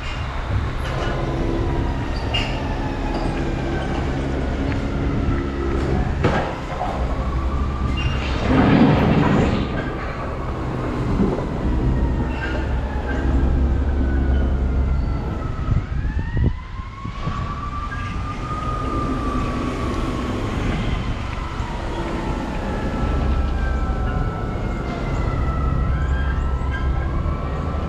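Emergency vehicle siren wailing, its pitch gliding slowly down, then rising and falling again about two-thirds of the way through, over a steady low rumble of street traffic.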